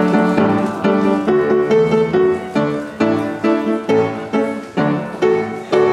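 Piano playing a tune in a steady run of struck chords, about two to three a second.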